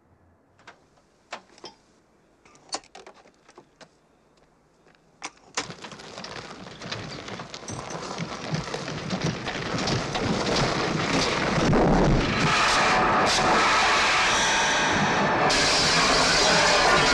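Film soundtrack: a few scattered clicks and knocks, then a rumbling noise that swells over several seconds into a loud, sustained din, growing hissier near the end.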